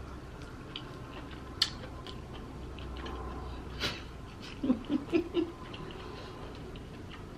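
Quiet eating sounds of a mouthful of snow crab being chewed, with a couple of faint clicks and a few short closed-mouth "mm" hums about five seconds in.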